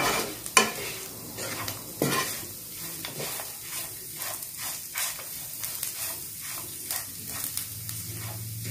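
Onion and chilli-powder masala sizzling in a nonstick frying pan while a spatula stirs and scrapes through it, with a few sharper knocks of the spatula on the pan in the first two seconds. The masala is being roasted until the raw smell of the chilli powder goes.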